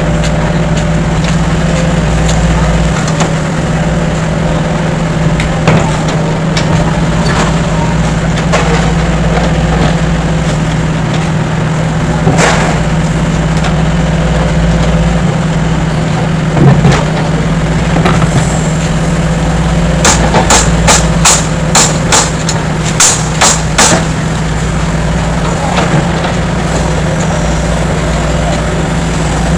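Tatsuo JP75-8 mini excavator's Yanmar four-stroke inline diesel running steadily as it digs mud, with a quick run of sharp knocks between about twenty and twenty-four seconds in.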